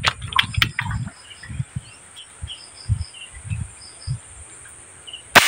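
Outdoor ambience of birds chirping over a steady high insect drone with low rumbles. About five seconds in, a single sharp airgun shot, the loudest sound.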